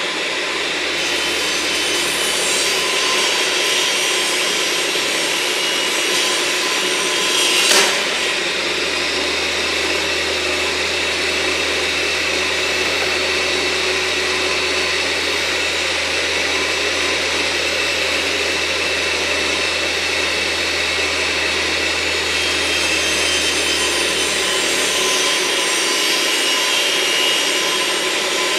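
Table saw running and cutting the frame-rest notch along the edge of a wooden hive-box board, a steady saw noise with a brief sharp crack about eight seconds in.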